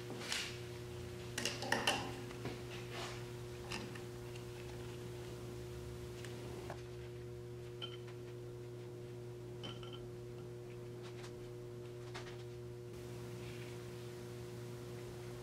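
Light metallic clicks and taps as a magnetic-base dial indicator's arm is positioned and its clamp knobs tightened, most of them in the first few seconds and a few fainter ticks later, over a steady electrical hum.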